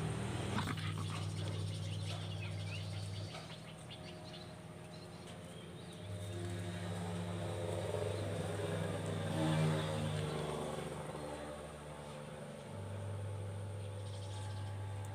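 A low, steady mechanical hum, like a motor running, that drops out after about three seconds, comes back about six seconds in, drops out again near ten seconds and returns near thirteen.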